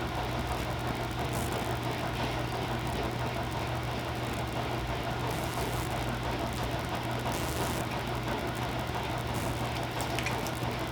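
A steady low hum under an even hiss, constant in level, with a few faint brief noises.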